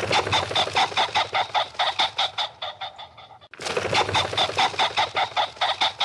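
A pheasant calling in a rapid run of short repeated notes, about five or six a second. The run breaks off abruptly about three and a half seconds in and starts again a moment later.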